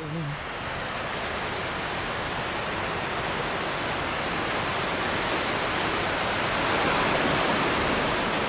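Bruarfoss waterfall's water rushing as a steady wash of noise, growing louder to its peak about seven seconds in.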